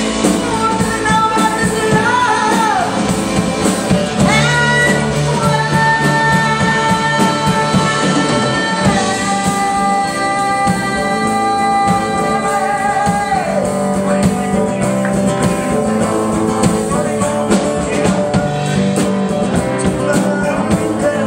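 Rock band playing a song, with long held lead notes over the full band.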